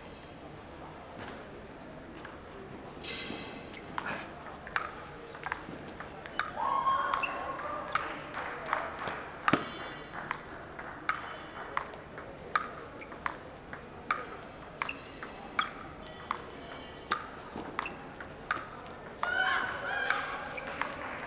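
A long table tennis rally with sandpaper-faced paddles: the ball gives sharp clicks off the paddles and the table, about two a second, starting a few seconds in and stopping shortly before the end.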